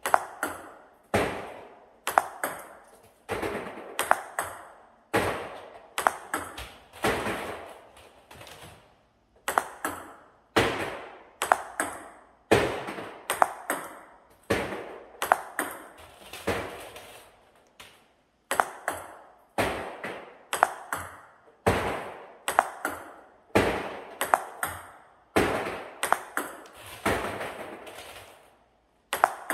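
Table tennis ball bouncing on the table and struck with a rubber paddle in forehand flicks, one shot about every second. Each shot is a quick cluster of sharp clicks that trail off, with a few short pauses between balls.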